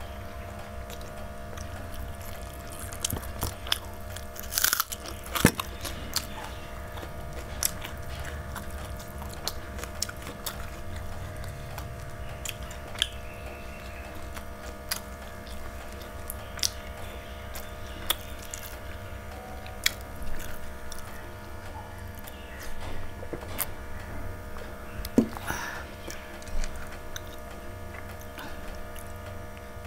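Close-up chewing and biting of mouthfuls of rice and chicken eaten by hand, with scattered wet mouth clicks and smacks. A steady machine hum from work going on next door runs underneath.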